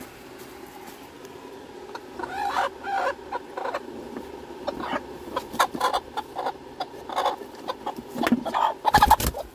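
Broody hen clucking and squawking in short repeated calls as gloved hands reach in under her on the nest, a hen disturbed while defending her nest. A loud thump comes near the end.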